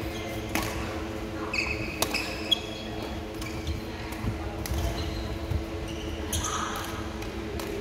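Badminton rackets striking a shuttlecock in a doubles rally: several sharp pocks, the loudest about two and a half seconds in, with short high squeaks of court shoes on the wooden floor between them and a steady hum beneath.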